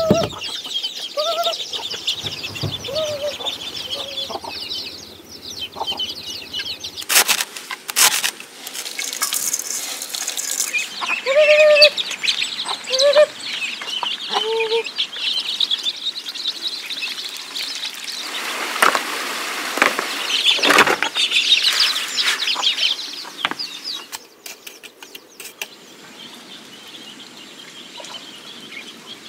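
A flock of ducklings and chicks peeping continuously, with a hen clucking in short calls now and then. There are a few knocks and a louder rustling stretch about two-thirds in.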